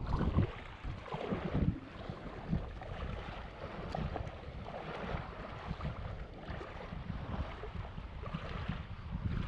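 Wind buffeting the microphone with a low rumble, over small waves washing on the shore in soft swells.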